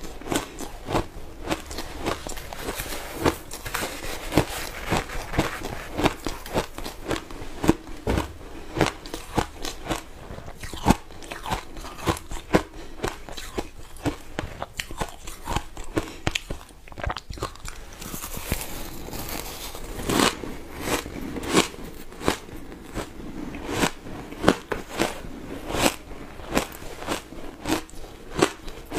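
Close-miked chewing of matcha shaved ice: a dense, irregular run of sharp crunches as the ice breaks between the teeth.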